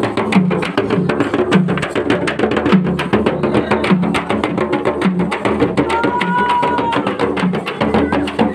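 A Kui tribal drum ensemble playing: large frame drums beaten rapidly with thin sticks over a deep barrel-drum beat that repeats about twice a second. A short, high held tone sounds briefly about six seconds in.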